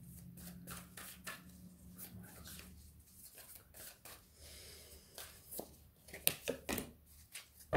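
A deck of tarot cards being shuffled by hand, overhand, giving a run of soft, irregular card slaps and rustles.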